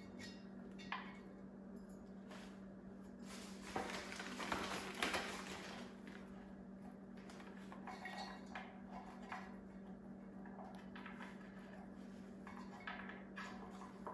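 Small bottle-brush Christmas trees being handled and set down on a wooden board: faint rustles and light clicks, with a louder stretch of handling noise about four to five and a half seconds in, over a steady low hum.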